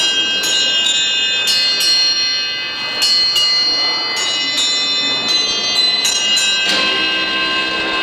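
A robot arm playing a tune on a row of bells: struck bell notes one after another, each ringing on under the next, with a few quick notes in a row about six seconds in.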